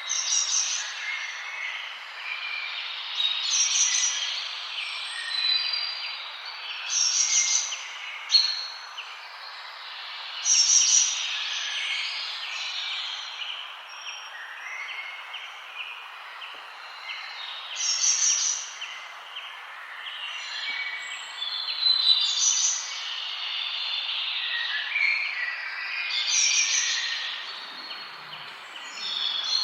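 Forest birds singing: one bird repeats a short, high, loud phrase every three to four seconds over a dense background of smaller chirps and calls and a steady hiss.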